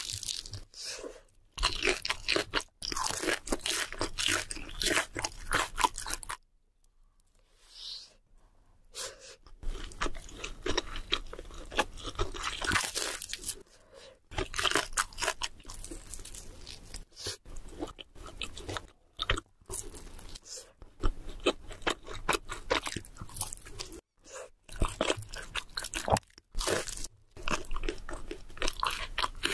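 Close-miked crunching and chewing of crispy fried food, with repeated crackly bites and wet chewing. It goes quiet for a few seconds about a quarter of the way in.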